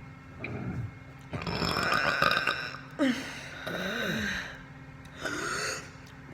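A person burping, about five belches in a row: a short one, then a long drawn-out one lasting about a second and a half, a sharp short burp about three seconds in, and two more after it.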